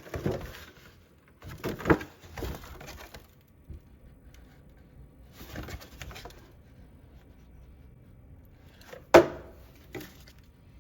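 Whole-home humidifier parts being handled: a new water panel and its plastic frame are fitted, with scattered clicks, rustles and scrapes. The loudest sound is one sharp knock about nine seconds in, followed by a lighter one a second later.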